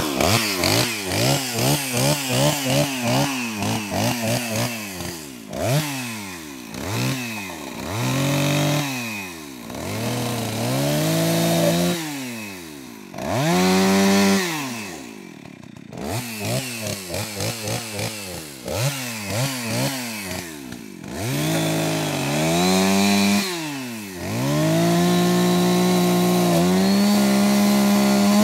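Two-stroke chainsaw limbing logs: the engine is blipped over and over at about two revs a second, then revved in longer bursts that drop back to idle, and held at high revs for the last few seconds of cutting.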